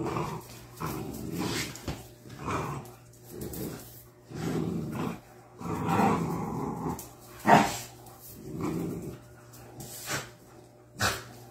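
Young dog play-growling in short rough bursts about a second apart while tugging on a rope toy. Two sharp short sounds stand out, the louder about seven and a half seconds in.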